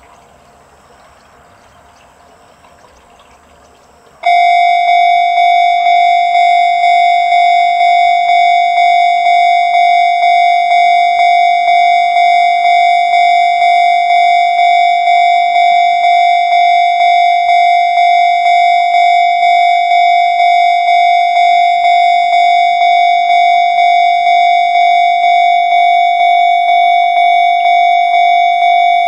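Japanese railway level-crossing alarm of the electronic Chichibu type starts about four seconds in, after a faint steady hiss, and rings on at about two strikes a second. It signals that a train is approaching.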